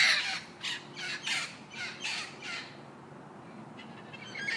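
Parrot squawking: a rapid series of harsh squawks that fade out about two and a half seconds in, with more harsh calls starting again near the end.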